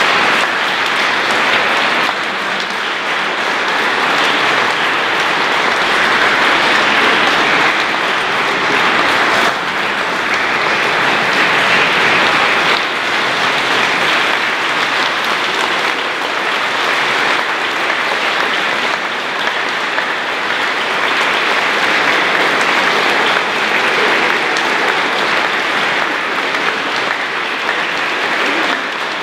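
Congregation applauding, a steady clapping that lasts throughout and swells and eases a little every few seconds.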